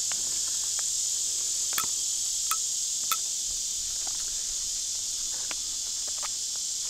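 A steady, high-pitched chorus of insects buzzing, with a few faint, sharp clicks of barbed wire being twisted together by hand.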